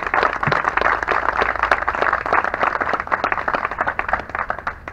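A small seated audience clapping and applauding, the many overlapping hand claps thinning out and dying away near the end.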